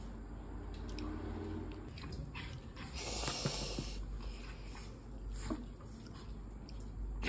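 Two Pomeranian puppies begging for food at a hand: short breathy sniffing noises and small clicks, loudest about three seconds in, over a steady low hum.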